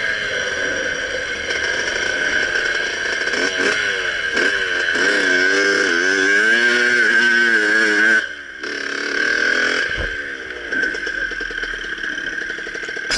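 Dirt bike engine running and being revved, its pitch rising and falling repeatedly as the throttle is worked, with a short dip in level about eight seconds in.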